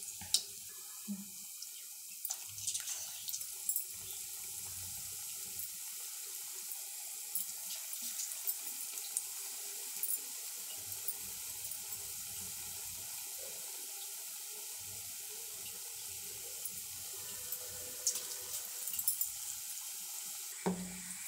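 Oil sizzling steadily in a kadai as gram-flour-battered, potato-stuffed pointed gourd rounds deep-fry, with scattered small pops.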